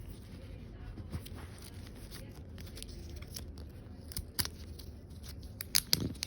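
AirPods box and packaging being opened and handled by hand: faint rustling with scattered small clicks and taps, bunched together near the end.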